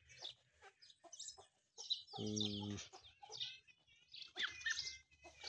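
Chickens clucking, with many short high chirps scattered throughout. A short low droning call, the loudest sound, comes about two seconds in.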